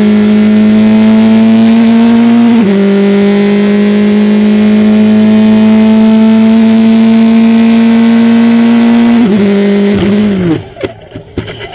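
Open-wheel race car engine heard from onboard, pulling hard with its note rising steadily. An upshift about two and a half seconds in drops the pitch, and it climbs again. Near the end the engine note drops and dies away as the car leaves the track, followed by knocks and clattering.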